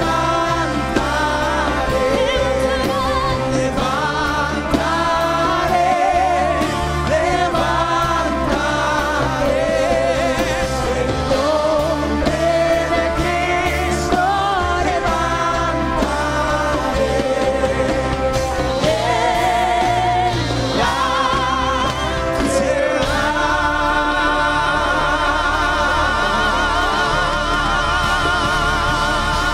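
Live worship band with several singers performing a gospel-style worship song. The voices sing a moving melody over the band, then settle into a long held note with vibrato near the end.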